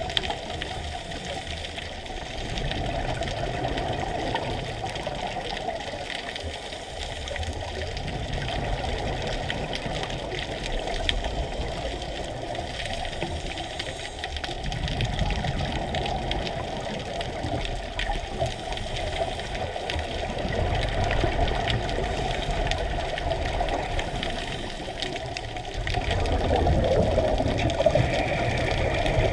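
A scuba diver's breathing through a regulator, heard underwater: a steady watery noise with swells of bubbling every five or six seconds as exhaled air vents.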